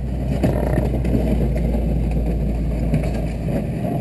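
GMC wrecker's engine running with a steady low rumble.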